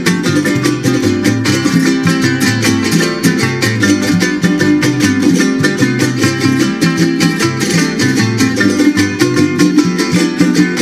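Son jarocho string ensemble playing: jaranas strummed in a quick, steady rhythm, with the guitarra de son (requinto) and a bass line from the bumburona.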